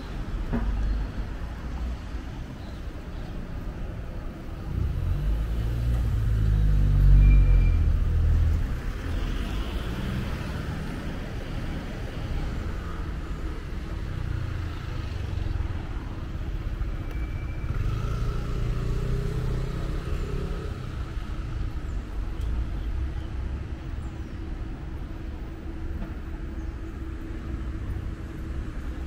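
Street traffic: several cars pass close by one after another, each a low rumble that swells and fades, the loudest about seven seconds in. A steady low hum runs underneath.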